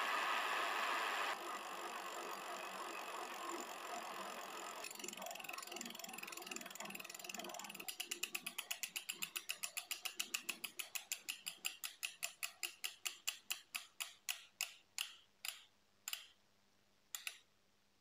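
Dry, roughly 30-year-old Shimano LX freehub on a freewheeling rear wheel, picked up through a mic clipped to the rear derailleur: a dense whir of pawl clicks and dry, ungreased ball bearings rolling. About eight seconds in it breaks into separate clicks that slow and spread out as the wheel spins down, the last one coming near the end.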